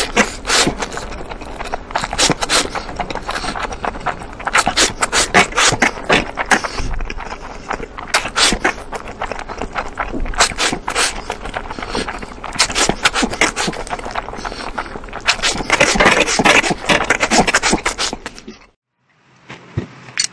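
A person slurping a mouthful of instant noodles, with continuous wet sucking and many quick smacking and chewing clicks. The sound breaks off for about a second near the end.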